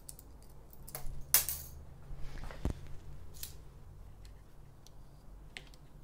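Metal clinks and clicks of a folding Allen-key multi-tool being handled while a dropper-post remote lever is fitted to a handlebar, with one sharp click about a second and a half in and a dull knock near the middle.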